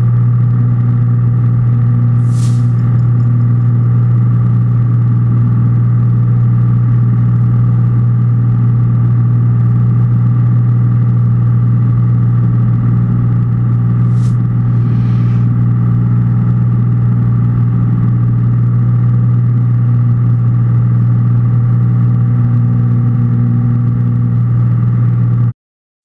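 Cessna 182's six-cylinder piston engine and propeller at takeoff and climb power, heard from inside the cockpit as a loud, steady drone. Two brief high-pitched sounds come through about 2 and 14 seconds in, and the drone cuts off suddenly near the end.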